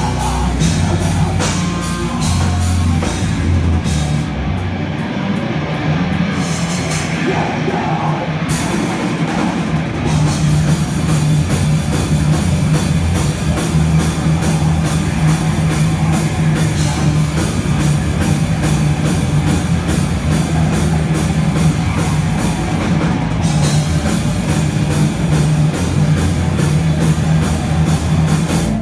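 Thrash metal band playing live: distorted electric guitars and bass hold a low riff over fast, steady drumming. The cymbals drop out briefly twice in the first ten seconds.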